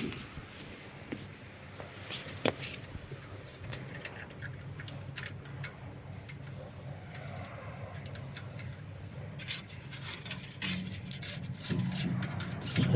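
Scattered sharp clicks and light knocks from hands working the welding wire and wire feeder, over a steady low hum. The clicks come thicker in the last few seconds.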